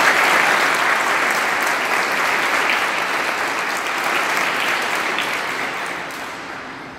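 Applause from a large group of people clapping. It is loudest at the start and dies away over the last second or two.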